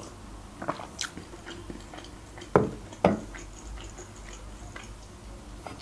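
Close-miked drinking from a mug: a few small wet mouth clicks, then two loud swallows about half a second apart, roughly halfway through.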